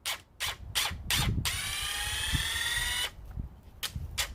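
Ryobi HP brushless cordless impact driver, its trigger held down, running in short pulses about three or four a second, which is how it behaves in reverse. About a second and a half in it runs continuously for about a second and a half with a rising motor whine, then goes back to pulsing.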